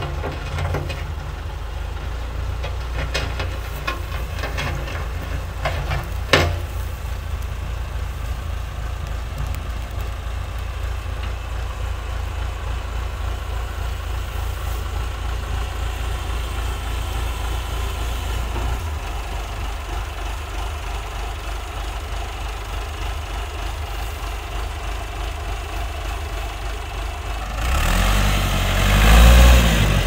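Massey Ferguson 50E backhoe's Perkins diesel engine running steadily, with one sharp knock about six seconds in. Near the end the engine grows louder, its pitch rising and falling as it works harder.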